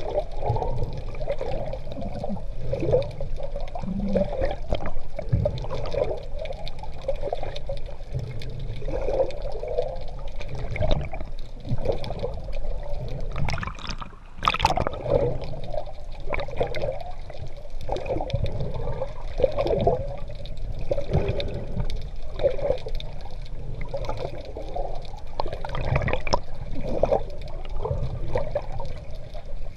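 Seawater sloshing and bubbling around an action camera carried by a swimmer, with irregular splashy surges from the strokes and a low rumble of moving water.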